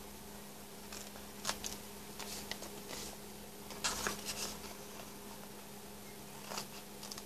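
Scissors snipping through a folded, napkin-covered dictionary page in short irregular cuts, with the paper rustling as it is handled; the busiest cutting comes about four seconds in. A faint steady hum sits underneath.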